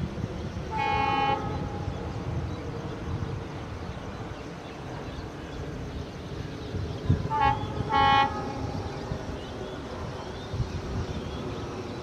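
Horn of an approaching WDP4 diesel locomotive. It gives one blast about a second in, then a short toot and a longer blast around seven to eight seconds in, each on a steady pitch. A low rumble from the locomotive runs beneath.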